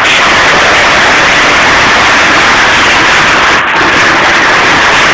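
Zetor 6341 Super tractor's diesel engine working under load as its front loader bucket pushes through a heap of stones, heard as a loud, even wash of noise with no clear engine note.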